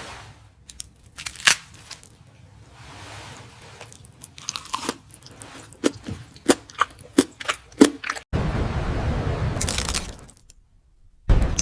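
Close-miked eating sounds: a run of sharp, crunchy bites and chewing. Near the end, a loud steady rushing noise lasts about two seconds.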